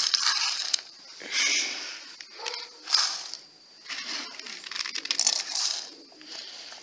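Dried corn kernels scooped from a plastic bag and poured into a bowl of wheat, rattling as they fall, with the plastic bag crinkling, in several irregular bursts.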